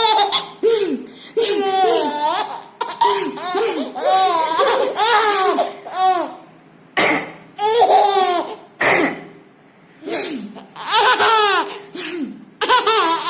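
A baby giggling and laughing in repeated high-pitched bursts, with two short sneezes about halfway through, each followed by fresh laughter.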